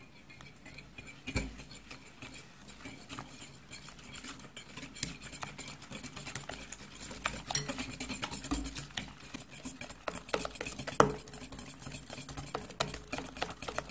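Wire whisk stirring egg whites, sugar and starch syrup in a glass bowl: wet swishing with the wires ticking and clinking against the glass. The stirring starts about a second in and grows busier and louder, with one sharper clink about eleven seconds in. The mix is stirred hard to dissolve the sugar rather than to whip up a foam.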